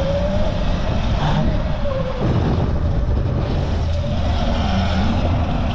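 Sur Ron Light Bee electric dirt bike's motor whining, its pitch shifting with the throttle and dropping away about two seconds in, over a steady low rumble.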